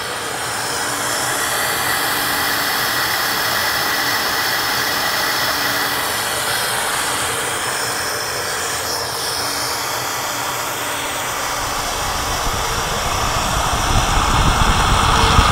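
SuperFlow SF-1020 flow bench fans running, pulling a steady, loud rush of air through the exhaust port of a 12-valve Cummins cylinder head. In the last few seconds the rush grows louder and deeper as the exhaust valve is opened further and the airflow climbs.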